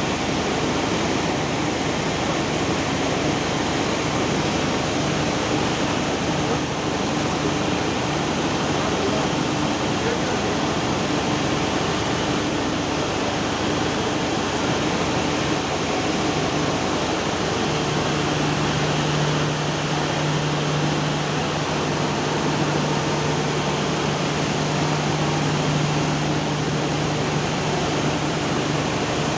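Steady rush of floodwater, an even unbroken noise. A low steady hum joins it about two-thirds of the way through.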